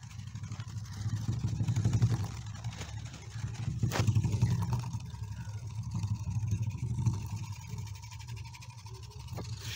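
Homemade scribbling robot's small motor buzzing as the robot vibrates across paper on its coloured-pen legs, the buzz swelling and fading; a sharp click about four seconds in.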